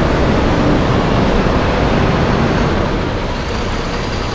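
Coach bus pulling away past the microphone, its engine running with a loud, steady noise.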